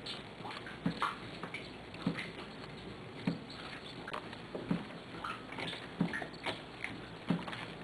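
Rainwater leaking through a rotting roof, dripping at an even pace of about one drop a second, with lighter ticks of smaller drips between.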